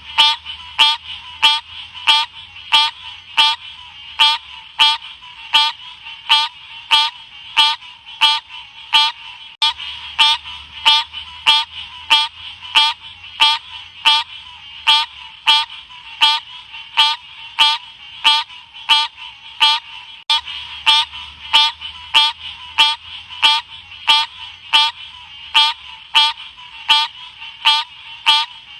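Green cascade frog (Odorrana livida) calling steadily. Each call is a short, high-pitched note, repeating at about two a second over a faint background hiss.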